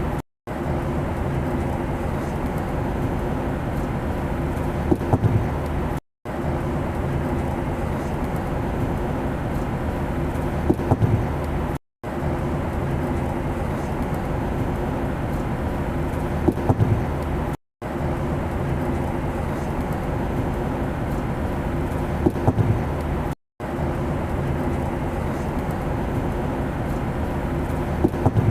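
Steady airplane engine drone with a low hum, played as a short loop: it cuts out for a split second about every six seconds, just after a few sharp clicks.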